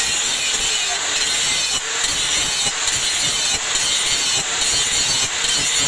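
Handheld angle grinder grinding the steel of a rusty meat cleaver blade, a steady high grinding hiss of the abrasive disc on metal.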